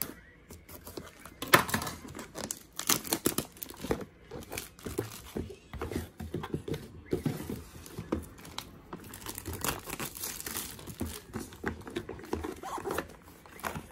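Packaging being crinkled and torn open by hand: a run of irregular crackles and rustles, loudest about a second and a half in.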